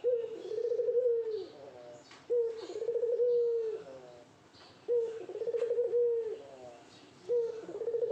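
Male puter (ringneck) dove giving its courtship coo, repeated four times about every two and a half seconds. Each coo is a short note, then a longer rolling tone that drops at its end.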